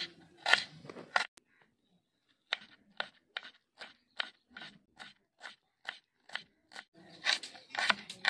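Knife slicing through an onion, a crisp crunch with each cut, about two or three cuts a second, with a short pause about a second in and quicker cuts near the end.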